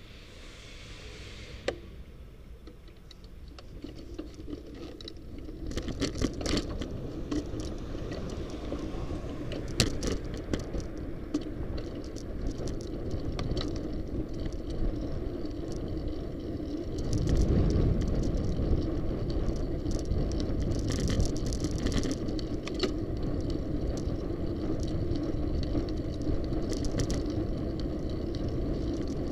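Bicycle riding along a city street, heard from a camera mounted on the bike: a steady hum of road noise with frequent light rattles and clicks over the pavement. It is quiet at first, picks up a few seconds in as the bike gets moving, and grows louder with a low rumble a little past halfway.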